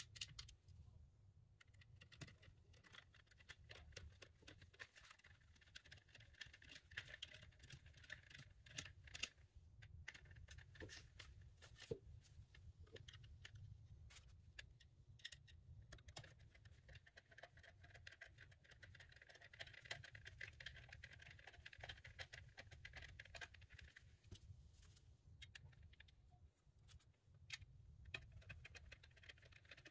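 Faint clicks, taps and scraping of a screwdriver working on small screws and plastic parts of a car navigation screen unit being taken apart by hand.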